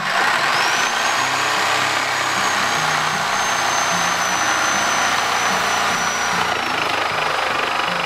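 Corded electric power tool starting up and running under load while cutting the tyre off a steel wheel. It gives a high motor whine that rises as it spins up about a second in, holds, and sags slightly later as the cut bears down, over a steady rasping cutting noise.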